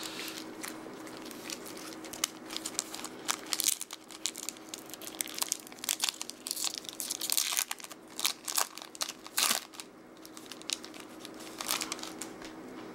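Foil wrapper of a 2011 Bowman Platinum baseball card pack being torn open and crinkled by hand: irregular crackling and tearing that comes in clusters, thickest about 3, 7 and 9 seconds in.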